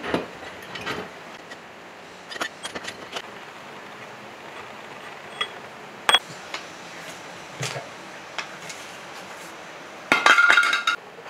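Metal clinks and knocks as parts and tools are handled on a rusted old diesel engine block being taken apart. About ten seconds in comes a louder, ringing clatter of metal lasting nearly a second.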